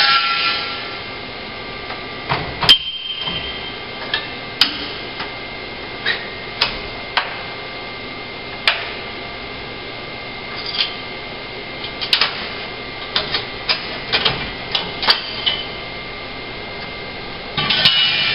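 Sharp metal clanks and clicks of steel parts being set into a welding fixture and its toggle clamps being worked by hand, irregular and spread through the whole stretch, over a steady background hum. A louder noisy stretch comes at the very start and again shortly before the end.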